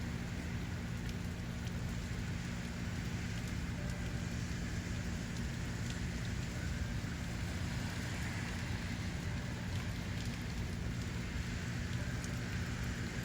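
Steady rain noise with a continuous low hum underneath.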